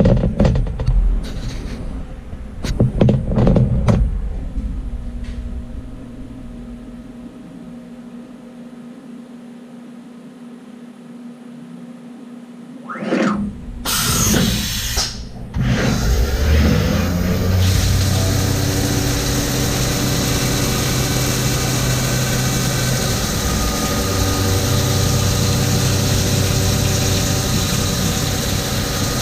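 A Haas VF-3 CNC vertical mill working through a machining cycle. There are clunks and whirs in the first few seconds, then a quieter stretch. About 16 seconds in, a steady hissing run with a hum underneath starts suddenly and keeps going.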